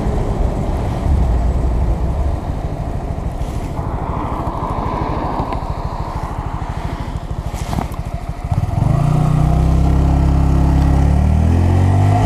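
Honda Grom's 125 cc single-cylinder engine idling at a stop, then pulling away about eight and a half seconds in, louder and rising steadily in pitch as it accelerates.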